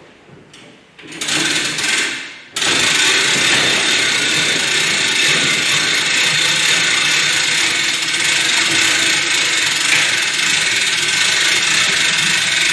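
Hand-cranked auto-locking winch on a drywall panel lift, its gearing and ratchet clattering steadily as a sheet of drywall is raised, starting in earnest about two and a half seconds in after a shorter burst.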